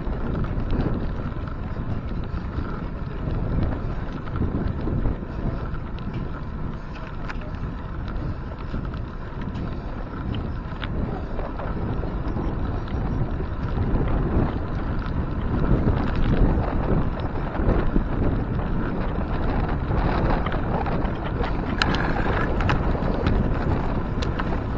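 Wind buffeting an action camera's microphone on a moving bicycle, over the rumble of wide 700x45c tyres rolling on concrete. A few sharp clicks or rattles from the bike, the plainest near the end.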